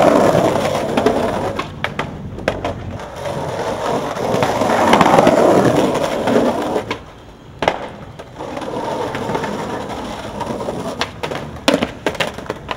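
Skateboard wheels rolling on a concrete sidewalk, the rumble swelling and fading as the skater pushes along. Sharp clacks of the board's tail and deck striking the pavement come a few times, clustered near the end as the board flips away and lands.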